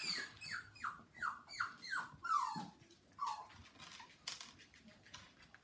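Puppy whining: a quick run of about eight short, high whines, each falling in pitch, in the first three seconds or so, eager for a kibble-filled Kong treat. A few light clicks follow near the end.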